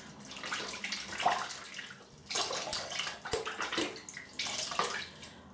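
Water splashing in irregular bursts as shaving lather is rinsed off hands at a sink.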